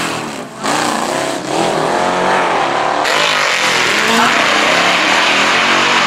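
A muscle car's V8 and a superbike's engine revving together at the drag-strip start line, the pitch swinging up and down with each blip of the throttle, with a brief dip in loudness about half a second in.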